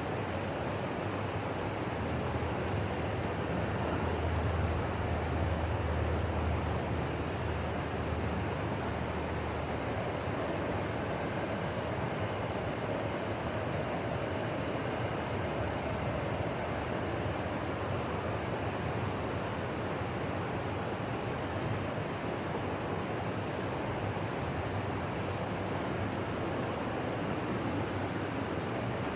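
Waterfall rushing steadily, with a low rumble that swells slightly a few seconds in.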